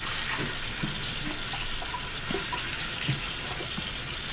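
Kitchen tap running steadily into a sink as strawberries are rinsed by hand in a plastic colander, with small knocks and splashes from the fruit and colander being handled.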